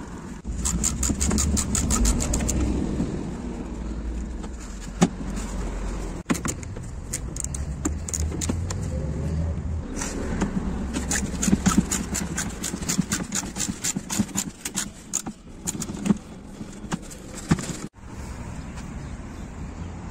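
Hand ratchet wrench with a socket clicking in quick runs as it turns out a bumper screw, once near the start and again in a longer stretch from about ten to fifteen seconds in, over a low rumble.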